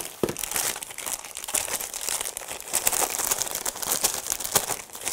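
Clear plastic packaging bags crinkling and rustling as plastic handheld case parts are handled and pulled out of them: a dense run of small crackles.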